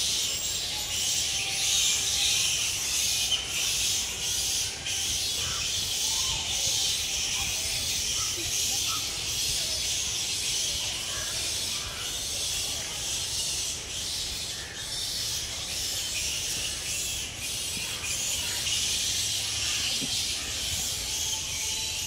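Steady, high-pitched buzzing chorus of insects in forest, with a few faint, scattered bird chirps underneath.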